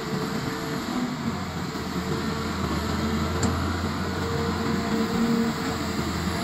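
Cat hydraulic excavator's diesel engine running steadily under load as the boom lifts a full bucket of soil, a constant low drone with a higher tone that comes and goes.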